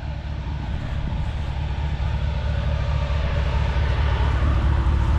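GMC Yukon's V8 engine running as the SUV crawls off-road toward the listener, its low rumble growing steadily louder.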